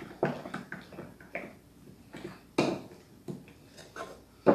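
A spoon stirring thick batter in a ceramic bowl, knocking and scraping against the bowl in short, irregular strokes.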